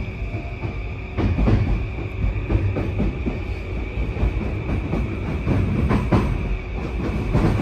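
Running sound heard inside an E235-series commuter train car: a steady low rumble of wheels on rail with a steady high-pitched tone, broken by repeated knocks as the wheels pass over rail joints.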